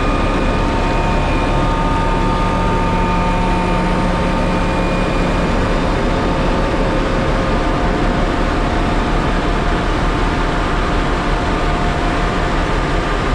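Heavy snow-removal machinery running steadily, a dense rumbling noise with a few faint held tones in it.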